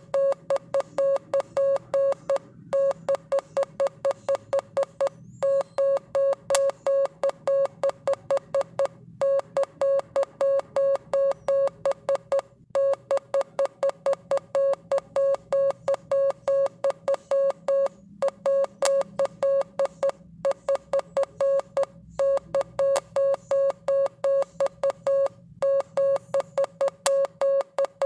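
Morse code sent as a single steady beep tone, keyed on and off in quick dots and dashes with short pauses between letters and words. A faint low hum lies underneath.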